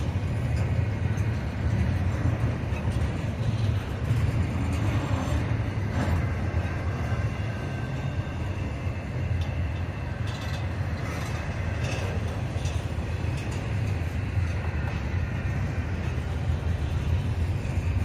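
Double-stack intermodal train's loaded well cars rolling past: a steady low rumble of steel wheels on the rails, with a few faint clicks and thin squeaks about ten to thirteen seconds in.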